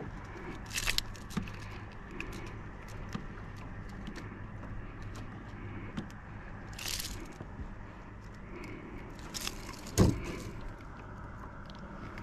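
Handling noises as a hooked fish is brought in and handled on a kayak: scattered clicks and rattles, a few short rushes of noise, and one loud knock about ten seconds in.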